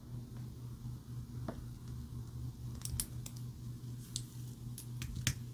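Stainless steel link bracelet and folding clasp of a Tudor Black Bay 58 clicking and rattling as the clasp is opened and the watch is taken off the wrist: a string of small, sharp metallic clicks from about halfway in, over a steady low hum.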